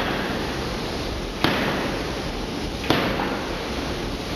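Electro-hydraulic forging hammer striking red-hot steel, three sharp blows about a second and a half apart over a steady noise.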